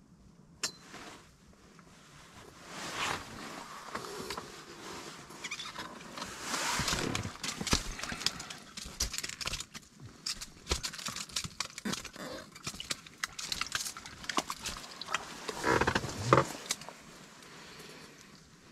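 Close handling noise as a bluegill is brought up through the ice hole and unhooked by hand: jacket rustling, small clicks and knocks from rod, reel and gear, in uneven bursts. A short, louder burst comes near the end.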